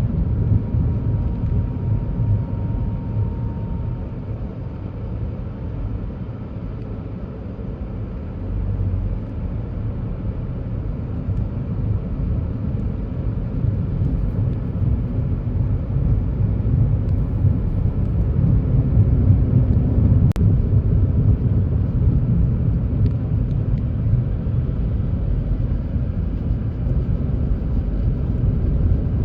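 Steady low rumble of vehicles moving on a road, with a faint thin tone in the first few seconds and a single sharp click about twenty seconds in.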